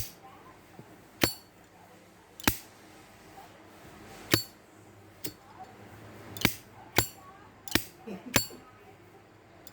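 Zippo lighter's metal lid clacking open and snapping shut again and again: about eight sharp metallic clicks at uneven intervals, some with a brief ring.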